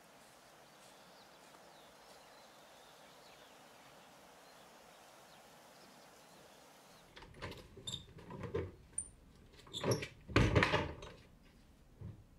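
Faint steady outdoor ambience, then about seven seconds in a run of knocks, bumps and clatter in a carpentry workshop, the loudest near the end.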